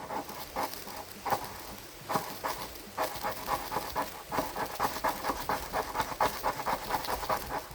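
Ferro rod being scraped over and over to throw sparks onto wood-shaving tinder: short rasping strokes, irregular at first, then a steady run of about four a second.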